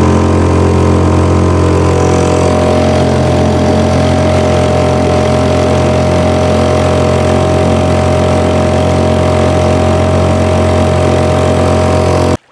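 Honda four-stroke outboard motor running steadily under way, driving the boat. The sound cuts off abruptly near the end.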